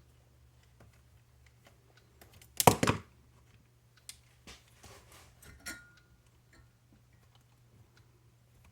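Small clicks and clatter of tiny RC-car parts and hand tools being handled on a workbench, with one louder rattle of a couple of quick knocks about two and a half seconds in. A faint steady hum runs underneath.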